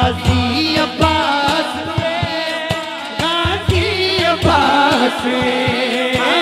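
Devotional manqabat music: a male voice singing long, gliding lines over a quick hand-drum beat and a steady low held note.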